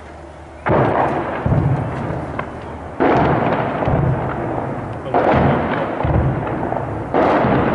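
Four heavy booms about two seconds apart, each starting suddenly and rolling on for a second or two as it fades: explosions from fighting, echoing across a city.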